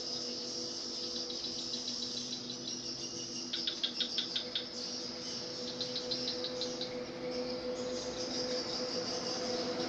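Insects chirping and trilling in a steady high chorus, with a louder run of rapid pulsed chirps about three and a half seconds in and another shorter one around six seconds, over a steady low hum.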